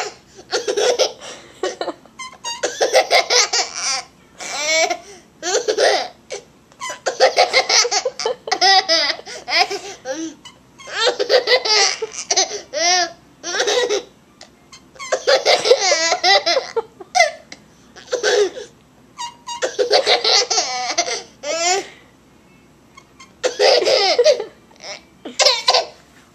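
A young child laughing in repeated, high-pitched fits, each burst lasting a second or two with short breaks between.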